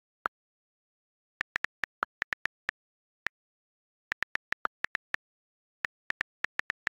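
iPhone on-screen keyboard clicks: about two dozen quick key taps in three runs with short pauses, as a text message is typed.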